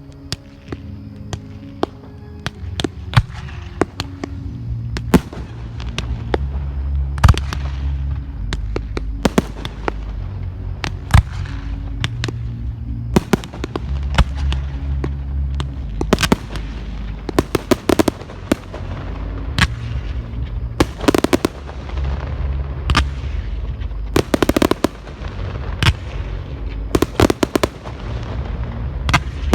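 Fireworks going off in a display, with many sharp bangs and crackles that come thicker and louder in the second half. Music with low held bass notes plays underneath throughout.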